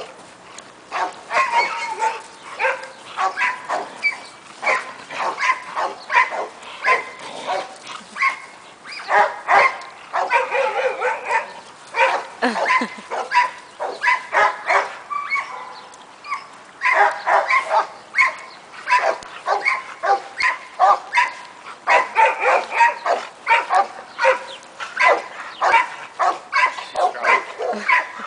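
Dog barking repeatedly, in runs of quick barks with short pauses between them.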